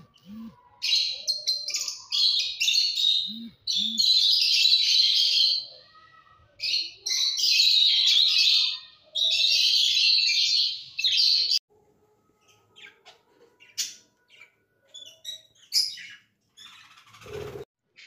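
Small caged parrots chattering and chirping in dense, loud high-pitched bursts for about ten seconds, then only scattered single calls and clicks. A short low knock comes near the end.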